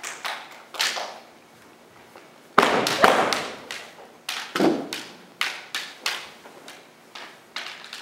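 Sharp clacks of bamboo shinai (kendo swords) striking each other and the armour, with thuds of stamping feet on a wooden floor. The knocks come singly and in quick clusters, the loudest about two and a half seconds in.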